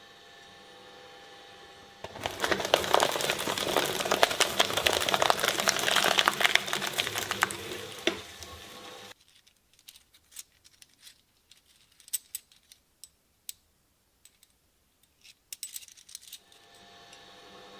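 Shredder running with a faint steady hum, then grinding an item for about six seconds as a loud, dense run of clicks and crackles. It falls nearly silent apart from scattered small clicks, and the hum returns near the end.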